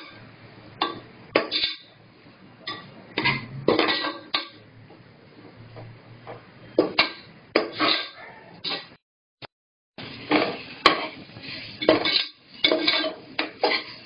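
Metal spoon scraping and knocking against the inside of a metal pressure cooker in irregular strokes, stirring frying tomato, onion and herbs. The sound cuts out completely for about a second around nine seconds in.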